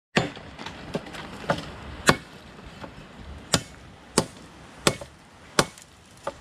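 Machete chopping into branches: a run of sharp blows, the loudest about two seconds in, then four strong strokes evenly spaced about two-thirds of a second apart.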